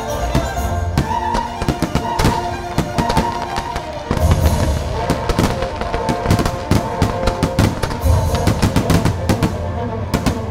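Fireworks shells bursting in many quick, irregular bangs over loud show music with held tones.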